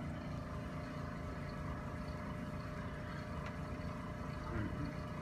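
Steady low mechanical hum, with a faint single click about three and a half seconds in.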